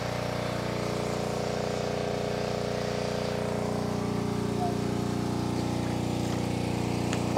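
Water pump's motor running steadily, pumping water out of a muddy pond, a constant hum that does not change.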